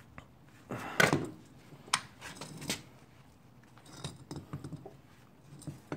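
Metal parts clinking and knocking as a steel steering knuckle fitted with an aluminium roll-center adjuster is handled among hand tools: a sharp clank about a second in, a few more clinks around two seconds in, then lighter ticks.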